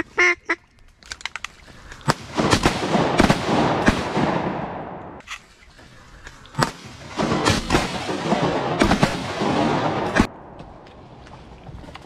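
Wood ducks give a short squeal as they flush. Then comes a volley of shotgun shots in two spells, about two to four seconds in and again from about six and a half to ten seconds, with a rush of noise after the shots.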